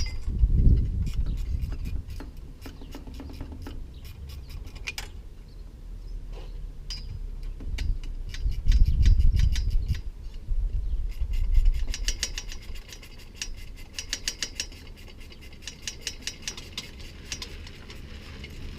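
Hand tools working on a bicycle's front brake as it is taken off: scattered metallic clicks and knocks with low handling thumps, then a long run of rapid, even clicking in the last third.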